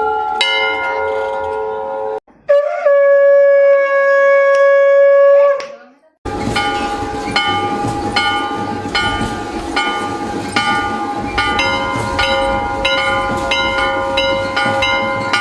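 Temple bell ringing out, then a conch shell (shankh) blown in one long steady note of about three seconds. Temple bells are then struck over and over, about two strikes a second.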